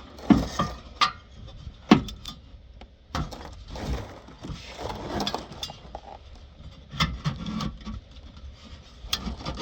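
Irregular clanks and knocks with some scraping, from hand tools and exhaust parts being worked loose while a rear muffler is taken off a car.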